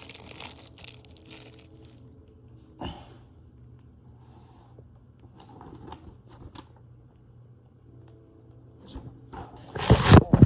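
Thin plastic hardware bags of fan screws and bolts crinkling and rustling as they are opened by hand, with a sharp click about three seconds in and a loud burst of rustling near the end.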